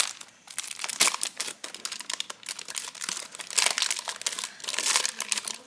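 Packet of Model Magic air-dry clay crinkling and rustling as it is opened and handled, in irregular bursts with several louder spells.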